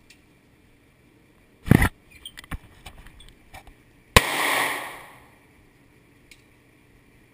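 Handgun shots at an indoor range: a loud report a little under two seconds in, then a scatter of lighter clicks and knocks, then a single sharp shot about four seconds in that rings on for nearly a second.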